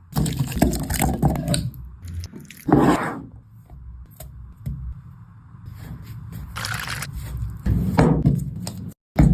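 Cooking sounds: liquid being poured and food stirred and scraped in a pan, coming in several separate bursts.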